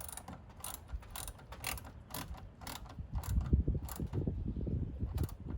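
Irregular metallic clicks and knocks of hand tools and parts being worked at a car battery's terminals, about two or three a second. From about three seconds in come heavier, lower knocks and rubbing, the loudest part.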